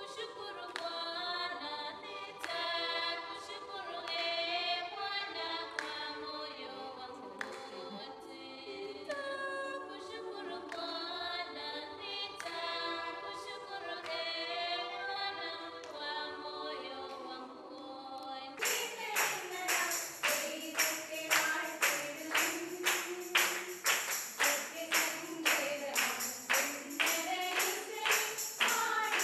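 A group of women singing a hymn together in harmony, unaccompanied. About 19 seconds in it changes to a livelier song with loud rhythmic hand-clapping, about two claps a second, under the singing.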